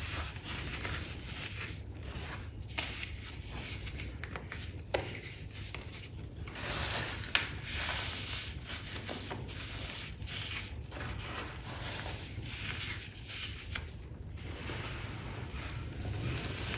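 Hands pressing, squeezing and rubbing loose baking soda powder, making a continuous soft rubbing and scraping noise that swells and fades, with a couple of sharper crackles partway through.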